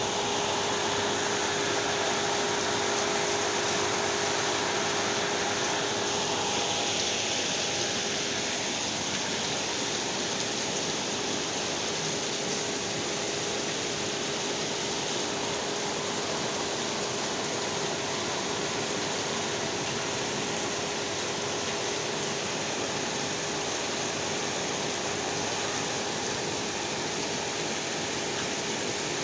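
Heavy tropical downpour with strong wind: a dense, steady hiss of rain. A faint hum underneath fades out about eight seconds in.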